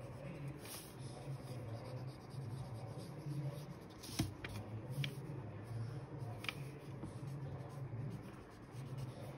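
Pen writing on a sheet of creased paper, the tip scratching in short strokes, with a few sharp ticks. A low hum runs underneath.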